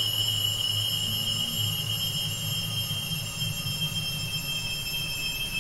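Steady high-pitched electronic whine with several fainter high tones above it and a low hum beneath: a sustained noise drone.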